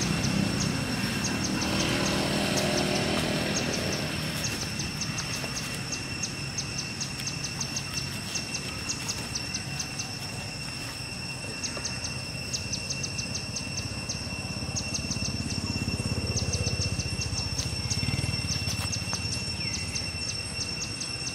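Outdoor ambience: repeated trains of rapid, high-pitched chirps over a steady high whine, with a low rumble that swells twice, early and again near the end.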